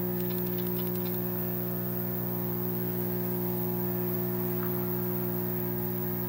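Steady electrical mains hum with a buzzy edge and a faint hiss, on the soundtrack of old transferred video footage. A few faint ticks come in the first second.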